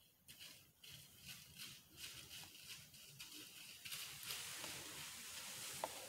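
Faint rustling, turning into a steadier hiss about four seconds in.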